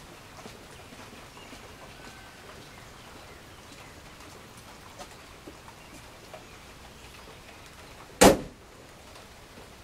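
A car's hood slammed shut: one loud bang about eight seconds in, after a stretch of faint outdoor quiet.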